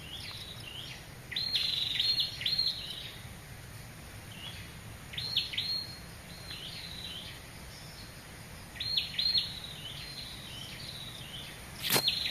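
A bird chirping in short bursts of quick, high, downward-sweeping notes, a burst every few seconds, over a steady background hiss. A single sharp click near the end.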